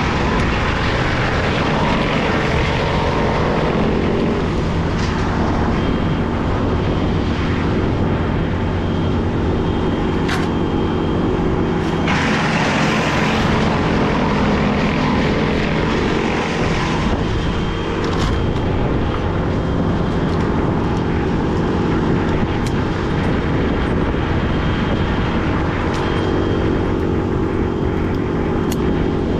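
Small engine of tree-work machinery running steadily at high revs, with a few sharp cracks and a burst of rushing noise about twelve seconds in.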